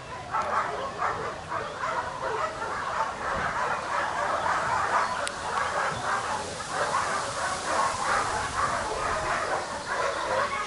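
Many shelter dogs barking and yelping together, their barks overlapping without a pause.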